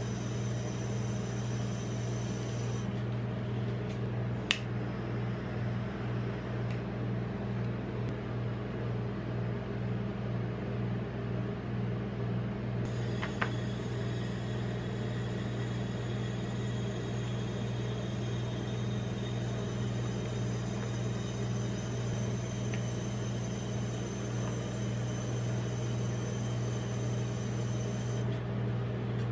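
Steady low hum of a rolled-ice-cream machine's refrigerated cold plate, its compressor running. Two brief light taps, one about four seconds in and one about thirteen seconds in.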